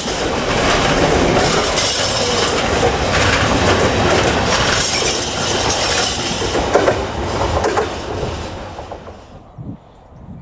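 Container freight train's intermodal wagons rolling past, wheels clattering on the rails. The noise dies away near the end as the last wagon goes by.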